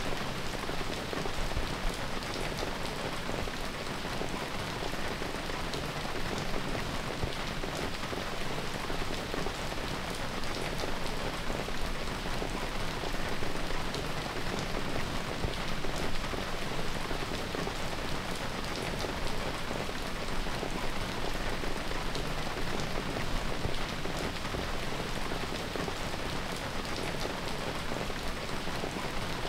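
Steady rain falling: a continuous even hiss with scattered drops ticking through it.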